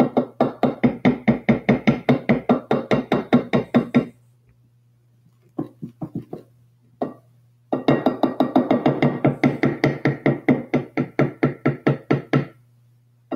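A plastic squeeze bottle of ketchup being shaken hard upside down, a fast even rhythm of about six shakes a second in two long bouts. A pause with a few single knocks comes about four seconds in. The ketchup is stuck and not coming out.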